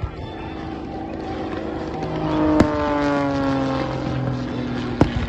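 Single-engine propeller airplane flying past, its engine note dropping in pitch as it goes by about halfway through. Three sharp bangs cut in: at the start, midway and near the end.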